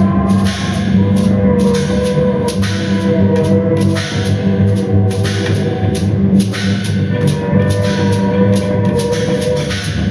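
Live band music: frequent drum and cymbal strikes over sustained low tones and held higher notes.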